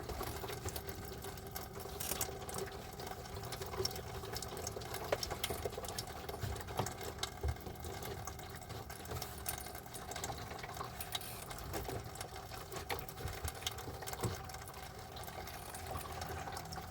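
Small battery-powered water pump humming steadily as it pushes water from the fresh-water jug through the van's plumbing, with water trickling and splashing and small scattered clicks.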